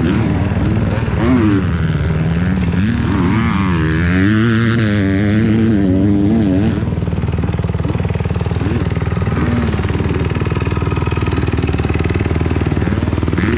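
Kawasaki motocross bike's engine running. Its revs rise and fall several times a few seconds in, then settle to a steady run.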